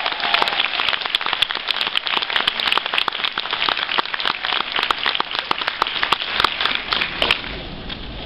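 Audience applauding, many hands clapping at once, dying away about seven seconds in.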